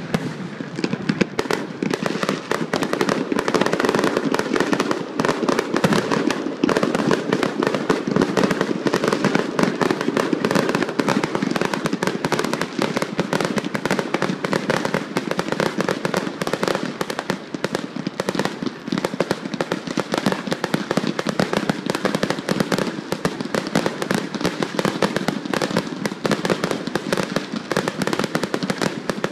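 Aerial fireworks going off in a rapid, unbroken barrage: shell bursts and crackling reports packed so closely that they run together.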